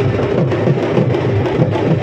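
Loud, fast drumming with a steady, driving rhythm.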